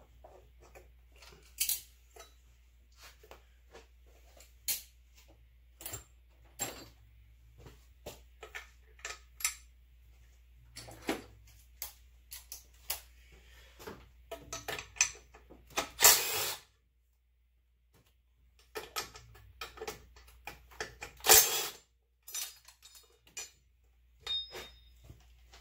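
Irregular metallic clinks and clacks of hand tools and parts being handled, with a few sharper, louder knocks among them.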